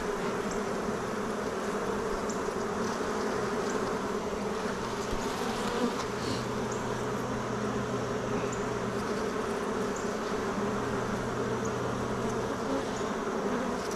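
Many honeybees buzzing steadily around an open hive during an inspection, a continuous dense hum.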